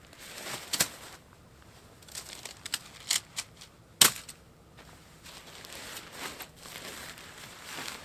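Naturehike Cloud Peak 2 tent fabric and stuff sack rustling and crinkling as the tent is unpacked and unrolled. Several sharp clicks and knocks come through it, the loudest about four seconds in.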